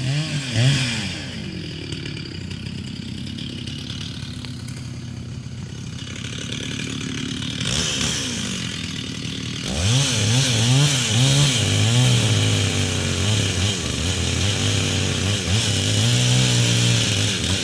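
Stihl chainsaw revving up and down, then running quieter for several seconds, then held at steady high revs from about ten seconds in, cutting into a big oak.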